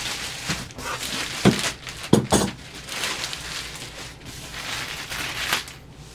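Packaging being handled: continuous crinkling and rustling of plastic and cardboard, with a few sharp knocks about a second and a half in, around two seconds in, and near the end.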